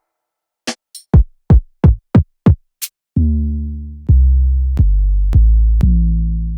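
Drum-machine samples from a dembow sound library played one at a time: a few short kick-drum hits with a quickly falling pitch and a couple of high cymbal-like ticks, then long low bass notes from about three seconds in, retriggered four times at changing pitch, each slowly fading.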